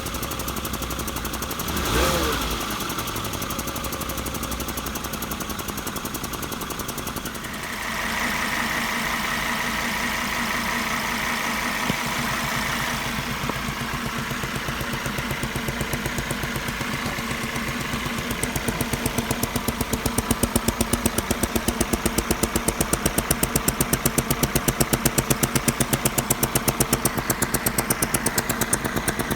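Volvo XC70 2.5T's turbocharged inline-five idling. About two-thirds of the way through, a rapid, even popping ('poko-poko') from under the car sets in and grows louder: the sign of a nylon tube that has come off.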